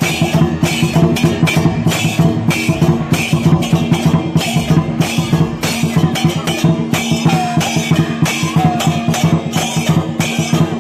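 Chinese drum, cymbal and gong ensemble playing the loud, driving accompaniment for a Teochew dragon dance, a fast, steady run of beats with cymbal crashes.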